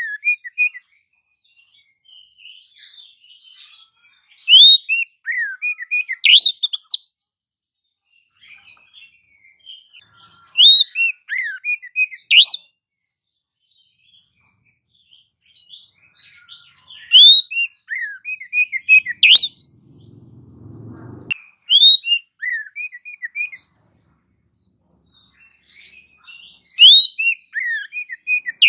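Bird calls from a bird-lure recording: bursts of sharp, high chirps and quick whistled glides, each burst a few seconds long and repeating about every five to six seconds. A brief low rumble comes about two-thirds of the way through.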